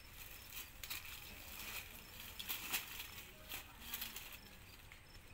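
Pigs feeding on leafy branches in dry leaf litter: irregular crunching and rustling clicks as they chew and root.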